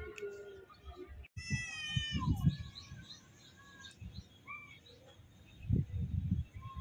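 A single high, meow-like animal cry about a second and a half in, lasting under a second and sliding down in pitch at its end. Low rumbling bursts come with it and again near the end.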